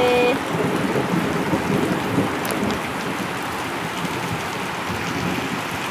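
Heavy rain pouring down steadily, a dense, even hiss of drops falling on surfaces.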